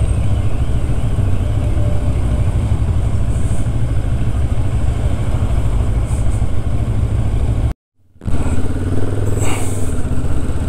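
Motorcycle engine running steadily while riding, under a heavy low rumble of wind on the microphone. The sound cuts out suddenly for about half a second near the eight-second mark, then the riding noise carries on.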